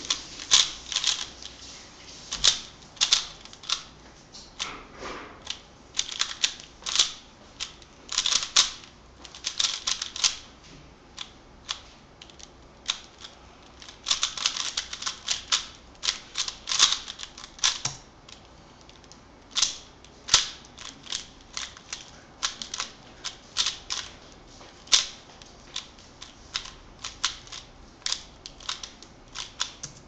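Plastic 3x3 Rubik's cube turned rapidly by hand during a speedsolve: fast runs of clicking layer turns in bursts, broken by short pauses between groups of moves.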